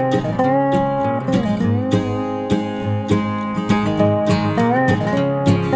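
Background music: acoustic guitar strumming with a sliding lead melody over a steady beat.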